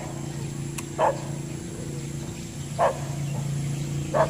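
A dog barking, three single barks a second or two apart, over a steady low hum.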